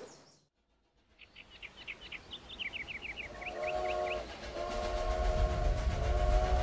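Birds chirping in quick repeated notes, then a steam locomotive's chime whistle blows, a short blast about three and a half seconds in and a longer one from about four and a half seconds, over the low rumble of the running train growing louder.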